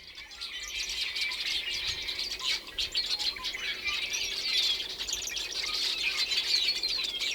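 Many small birds chirping and singing together, a dense steady chorus of quick high chirps and short twittering glides.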